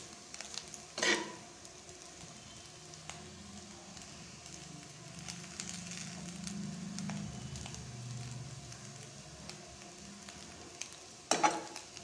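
Fish-roe stir-fry sizzling gently in a kadai as it is stirred, with small ticks from the spoon. A steel spoon clatters loudly against the pan about a second in and again near the end.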